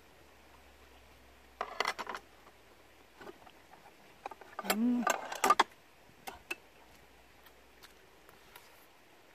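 Metal spoon and chopsticks clinking and scraping against a clear food container of rice: a short clatter about two seconds in, then a quick run of sharp clicks around five seconds, with a brief hum from the eater just before them.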